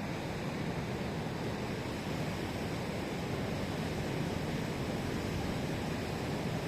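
Sea surf washing onto the shore, a steady even rush of waves.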